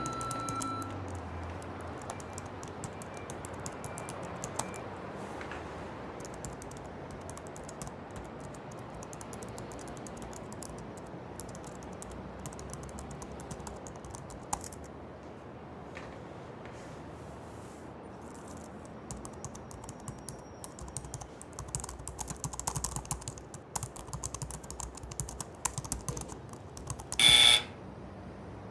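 Typing on a laptop keyboard: scattered key clicks over a steady background hiss, coming in quicker runs in the last third. A short, loud burst of noise cuts in near the end.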